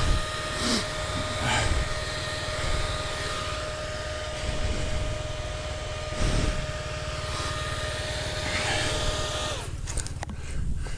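KTM 300 TPI two-stroke dirt-bike engine idling, with a steady high tone over it that ends with a falling pitch about nine and a half seconds in. A few short knocks, one at the very start and one about six seconds in.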